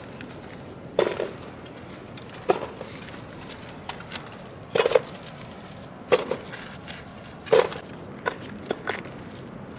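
Dried maize cobs being picked up and dropped into a metal pot, a dozen or so irregular hard knocks and clunks as the cobs hit the pot and each other.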